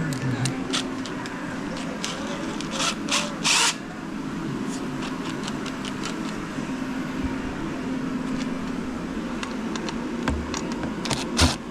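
Hand tools and metal parts clicking and clinking during a dirt bike teardown, with a few louder scrapes or clatters, over a steady background hum.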